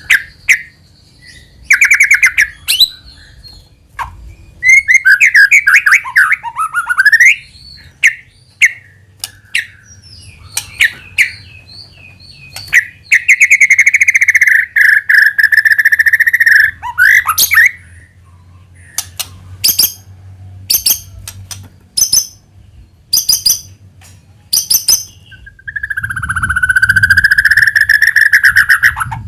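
White-rumped shama (murai batu) singing loudly in separate phrases with short pauses: varied whistled phrases, a run of short sharp notes in the middle, and two long trilled phrases held for a few seconds each, one near the middle and one near the end. This is a lure song, played to provoke other shamas into singing.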